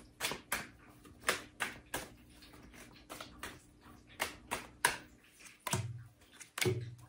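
Tarot cards being handled over a wooden table: an irregular string of crisp card clicks and snaps as cards are shuffled and pulled from the deck, with a few duller knocks near the end as cards are laid down on the table.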